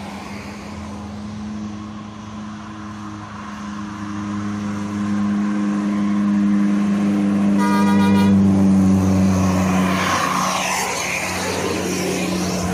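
Heavy bus engine running at a steady pitch, growing louder as the bus approaches and passes, with a short horn toot about two-thirds of the way through and a rush of passing noise near the end.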